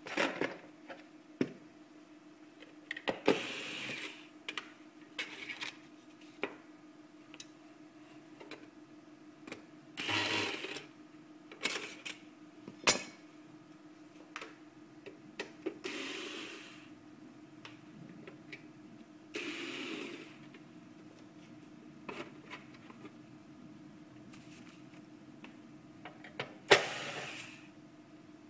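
Hands working on a POS terminal's plastic and metal parts: scattered clicks and knocks and several short scraping sounds of about a second each, over a steady low hum.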